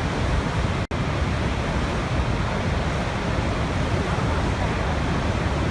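Niagara Falls: a dense, steady rush of falling water, heaviest in the low end, broken by a brief dropout about a second in.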